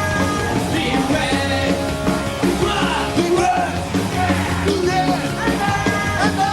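Loud rock music with a vocal line running through it.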